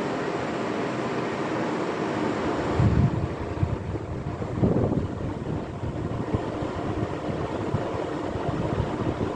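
Climax Deluxe ceiling fan running on a square wave inverter: a steady electrical hum made of several even tones over a rush of air, the humming that the inverter's square wave output causes in the fan motor. Two louder low bursts come about three seconds in and again near five seconds.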